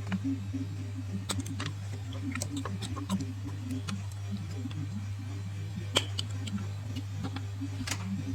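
Quiet background music over a steady low hum, with scattered sharp clicks and taps, as of tools and small parts being handled.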